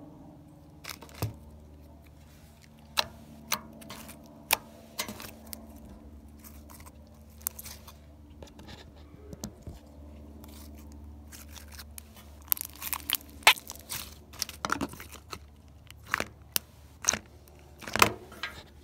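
Orange slime being stretched, pulled apart and handled by hand: a run of sharp, sticky pops and clicks, sparse at first and coming thicker from about twelve seconds in.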